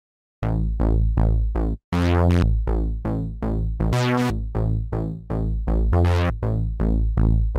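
Background music with a steady beat, starting about half a second in.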